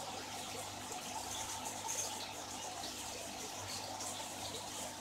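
Aquarium aeration bubbling steadily: streams of air bubbles from two air stones rising and breaking at the water surface, with a faint low hum underneath.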